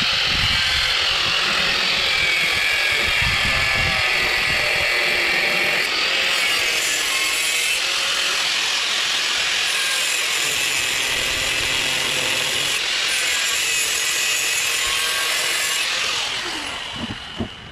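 Corded angle grinder running steadily with a high whine as it grinds the points off a lawn mower's star-shaped blade adapter to round it. It winds down near the end.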